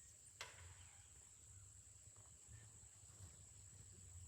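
Near silence: quiet outdoor background with a faint steady high-pitched tone, and a single click about half a second in.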